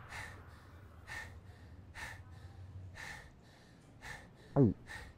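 A voice giving short breathy gasps, about one a second, then a single loud yelp that falls steeply in pitch near the end.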